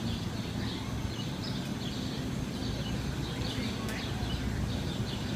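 Many small birds chirping, with short, falling calls, over a steady low rumble.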